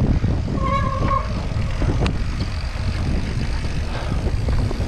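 Wind rushing over the microphone and mountain bike tyres rolling fast over a dirt trail, a steady rumble. A brief high squeal sounds about a second in, and a single sharp clack about two seconds in.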